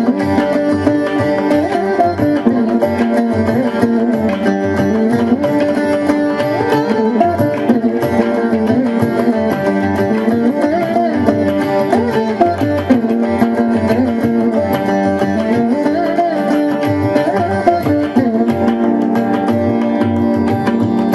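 Carnatic veena music: a plucked melody with sliding notes over a steady drone, with hand-drum accompaniment.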